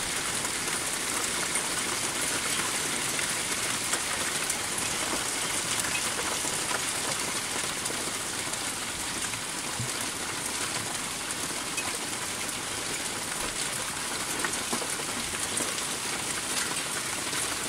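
Hailstorm: hailstones pelting a paved patio and gravel in a steady, dense patter.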